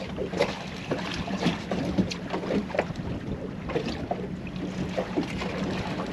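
Water slapping and splashing against a small boat's hull in short irregular knocks, with wind on the microphone over a steady low hum.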